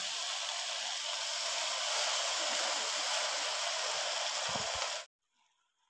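Steady hissing sizzle of washed, wet spinach leaves heating in a hot kadhai on a gas stove. It cuts off abruptly about five seconds in.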